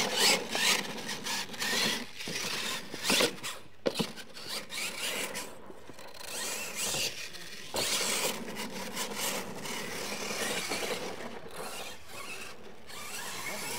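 Radio-controlled monster truck driving hard on a dirt track, its motor and drivetrain whirring in uneven surges as the tyres throw up dirt.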